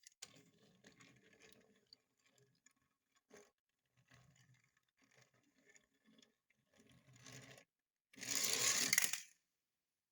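Handling noises from opening toy cars: light scraping and rustling of packaging, then a louder scraping noise about eight seconds in, lasting about a second.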